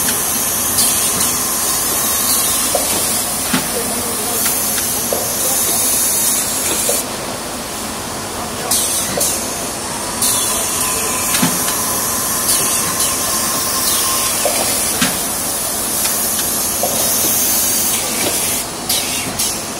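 Valve bag packing machine running: a loud, steady hiss with a machine hum underneath and scattered clicks and knocks. The hiss drops away for a few seconds about seven seconds in and comes back around ten seconds.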